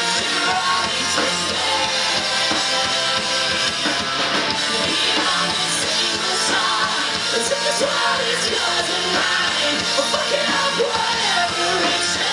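Live rock band playing amplified through a PA: electric guitars, drums and a lead singer.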